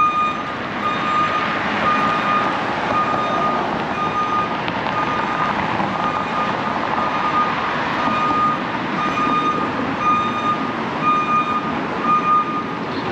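A vehicle's reversing alarm beeping steadily, about once a second, over street traffic noise; the beeping stops near the end.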